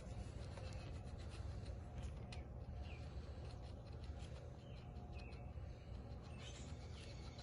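Faint scratching and rubbing with many small scattered clicks, over a steady low hum.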